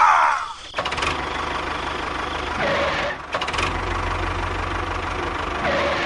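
A small engine starts running about a second in, with a fast, even knocking rattle over a low hum. Short high squeaks come at the start, near the middle and near the end.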